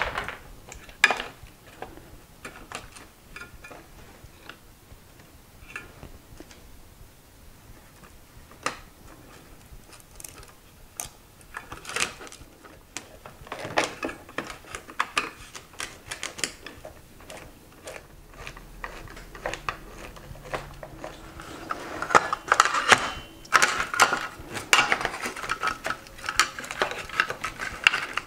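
Scattered clicks, taps and light metal clatter of a charger's metal case and circuit board being handled and screwed back together with a screwdriver, with a denser run of clatter in the last several seconds.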